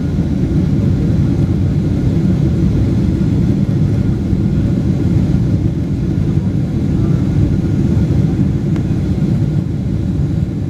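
Steady low cabin rumble inside a Boeing 777-300ER climbing out after take-off: its two GE90 turbofans at climb power and the rush of air past the fuselage.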